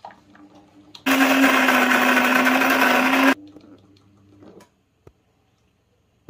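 A click of the power button on a Cuisinart grind-and-brew coffee maker, then its built-in bean grinder running for about two seconds: a loud, steady motor whine that cuts off suddenly. A fainter hum follows for about a second, then a few small clicks.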